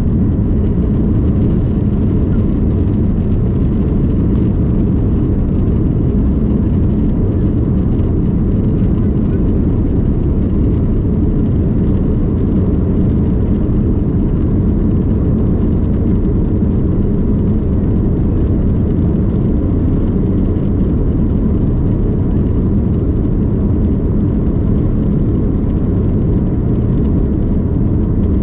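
Cabin noise of an Airbus A330-200 on its takeoff run: a steady, loud engine noise with the low rumble of the wheels on the runway, heard from inside the cabin.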